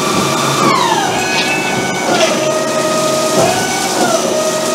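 Metal lathe machining an aluminium air-rifle cylinder end: a spindle whine that glides down in pitch about a second in, then steps down and back up several times as the spindle speed changes, over a steady hiss of coolant spraying on the work.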